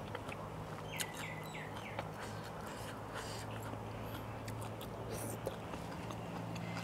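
Quiet chewing with faint mouth clicks over a steady low hum. A short run of high chirping calls comes about a second in.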